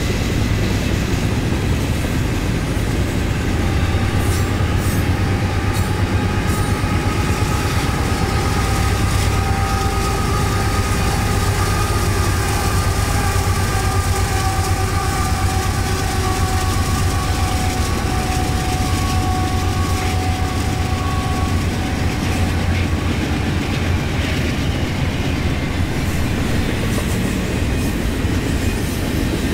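Union Pacific diesel freight train passing: the locomotive engines drone steadily under the rumble and clatter of wheels on rail. A faint high steady ringing tone runs through much of it and stops about two-thirds of the way in.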